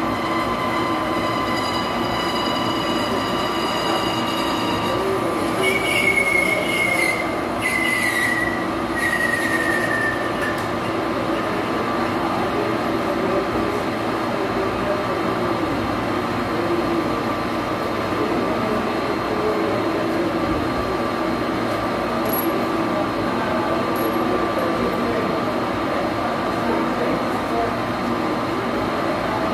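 Metal lathe running while turning metal: a steady machine hum. For the first ten seconds the cutting tool squeals high on the work, a held ringing tone and then three short squeals that fall slightly in pitch.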